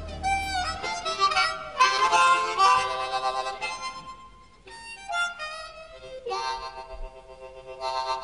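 Instrumental music: a solo melody line of separate held notes, some bending in pitch, over a quiet backing.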